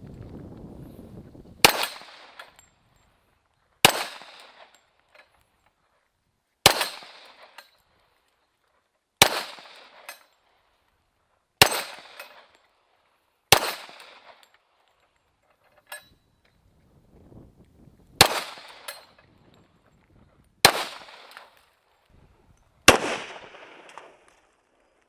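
A .45 caliber 1911 pistol fired nine times in slow, deliberate single shots, about two to two and a half seconds apart, each with a short echo. A faint click comes between the sixth and seventh shots.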